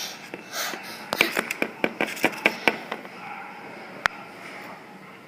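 A run of light plastic clicks and taps, about four or five a second for a second and a half, then one more single click: small plastic toy figures handled and tapped on a surface as if walking.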